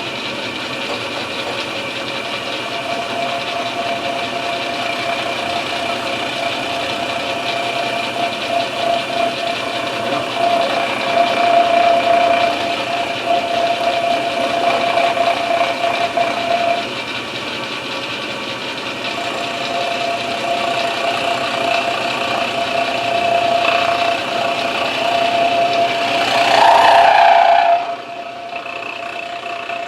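Milling machine running a cutting pass through an English walnut gunstock blank: a steady machine whine with cutter noise that grows louder twice as the cutter bites harder, then drops off sharply near the end.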